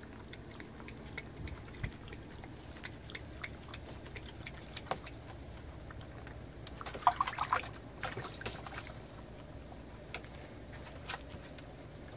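French bulldog in a shallow plastic kiddie pool, lapping and splashing the water: scattered small splashes and drips, with a quick run of lapping sounds about seven seconds in.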